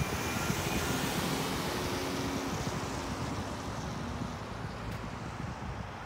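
A car passing on the road, its tyre and engine noise fading steadily as it moves away.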